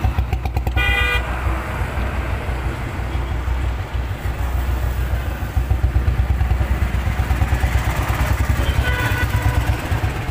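A motor vehicle engine running close by with a pulsing low rumble, and a short horn toot about a second in.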